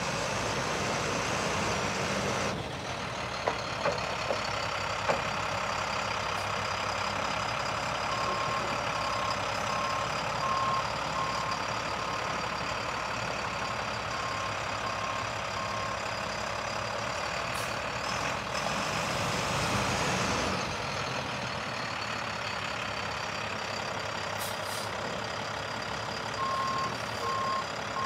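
A diesel truck engine runs steadily. A backup alarm beeps in an even series for several seconds midway and starts again near the end.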